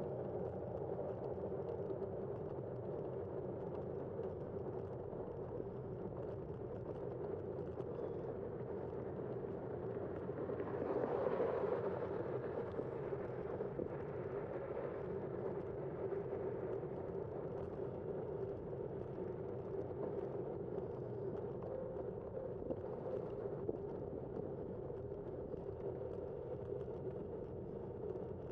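Steady wind and road noise on a bicycle-mounted camera while riding, with a brief louder rush of noise about eleven seconds in.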